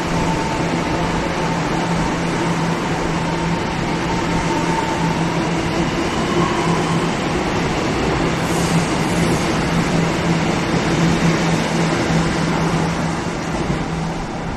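Taiwan Railways EMU700 electric multiple unit pulling out of the station past the platform. Its wheels and traction motors run steadily with a low hum and a fainter higher tone, and the sound falls off near the end as the train moves away.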